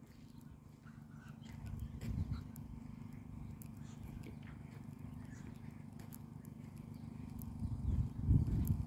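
Wind buffeting the phone's microphone: an uneven low rumble that gusts louder about two seconds in and again near the end, with faint scattered clicks.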